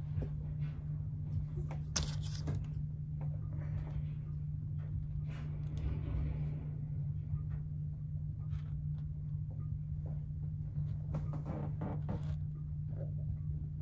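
A steady low hum underneath light handling sounds: plastic icing bag rustling and gingerbread cookie panels being tapped and set on a board. There is a sharp click about two seconds in, rustling around the middle, and a cluster of small clicks near the end.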